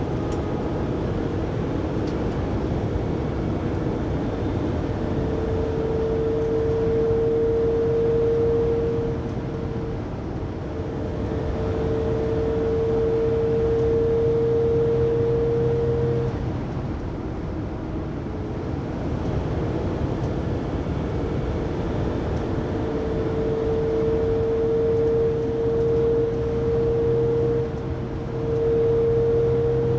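Loud whining noise inside the cabin of a 2019 Mercedes Sprinter 3500XD van cruising at 80–90 km/h: one steady tone over the road and engine noise, coming in for stretches of several seconds and fading out between them. The whine remains even after the drive shaft and differential were replaced, so its cause is still unfound.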